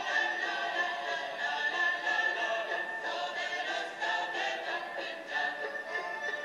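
A choir of voices singing a song, with a steady high tone held underneath.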